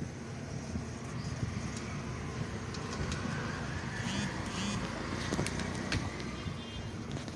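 Steady low background rumble, with two brief high chirps about four seconds in and a few faint clicks.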